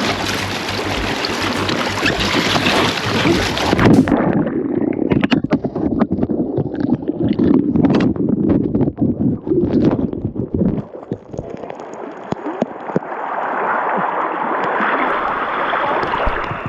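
Rushing river water around a small fishing boat. A string of sharp knocks and clunks from about four seconds to about eleven seconds, then a smoother rush of water.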